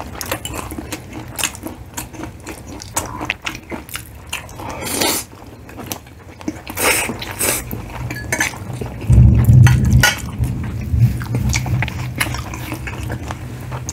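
Close-up eating sounds of fried chicken and spaghetti: biting and chewing, with utensils clicking against plates. There is a loud low thump about nine seconds in.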